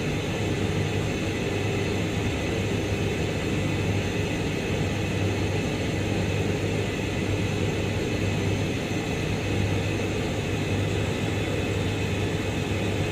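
Steady low hum of industrial plant machinery with an even hiss over it.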